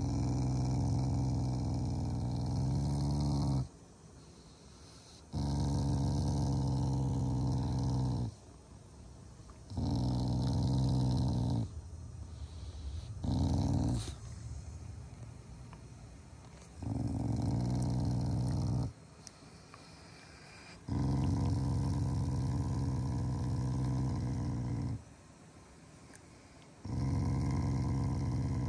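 Black Shiba Inu growling in about seven low, rough bouts of one to four seconds each, with short pauses between, while being stroked on the cheek. This is an affectionate play growl, not an angry one.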